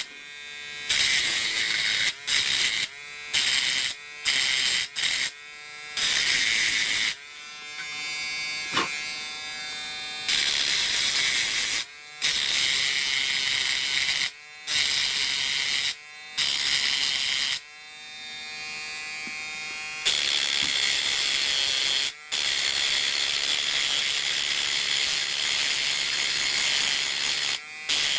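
Small hand-held electric rotary tool running in short start-stop spells, grinding off sharp needle-strike burrs on a sewing machine's needle plate. It alternates between a whine and a harsher, high-pitched grinding hiss.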